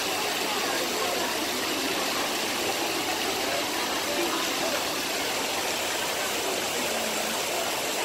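Steady rush of the Trevi Fountain's cascading water, mixed with the chatter of a large crowd of people.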